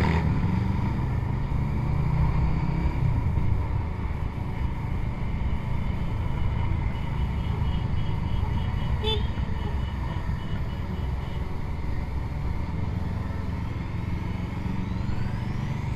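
Motorcycle engines running at low speed in a group ride, heard from the rider's own bike: a steady low rumble.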